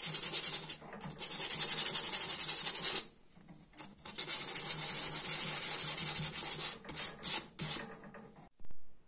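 Twisted copper wire being filed on a wooden bench pin: runs of quick back-and-forth rasping strokes broken by short pauses, stopping near the end.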